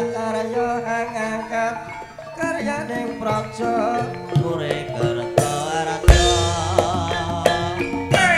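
Javanese gamelan music for a tayub dance: struck metal keyed instruments playing a busy melody over drum strokes, with a loud low stroke about six seconds in.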